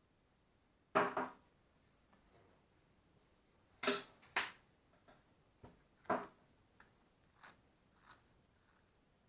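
A few sharp clicks and knocks at irregular intervals, like small parts or a tool being handled, with no motor running. The loudest come about a second in, twice near four seconds and just after six seconds, with fainter ticks between.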